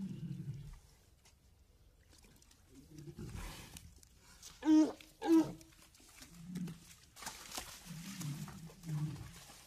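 Walrus vocalizing: low grunts at intervals, with two loud, short pitched calls in quick succession about five seconds in and a breathy hiss a couple of seconds later.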